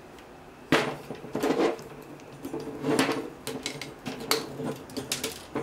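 Irregular knocks and clatter of a metal timer-relay assembly and its wiring being handled and set down on a table, with about half a dozen sharp knocks, the loudest under a second in.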